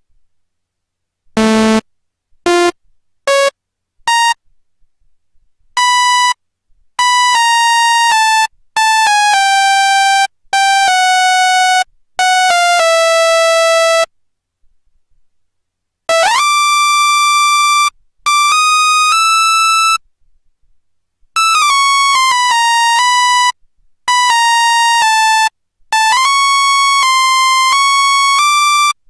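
Serum software synthesizer playing a run of bright, buzzy synth notes separated by short silences: a few short stabs first, then longer held notes, several opening with a quick upward pitch glide, the pitch stepping from note to note.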